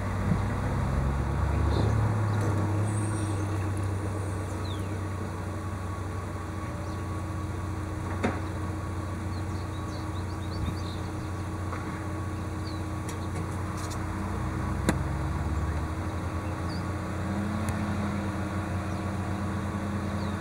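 Peterbilt 330 rear-loader garbage truck's diesel engine running steadily at idle, with a couple of sharp knocks about eight and fifteen seconds in.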